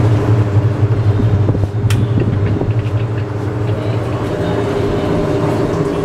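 Singer SWM97108X top-loading washing machine running with a steady low motor hum, with a single sharp click about two seconds in.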